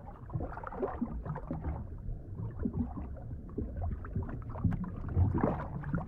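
Muffled underwater water noise: low gurgling and sloshing with many small scattered pops.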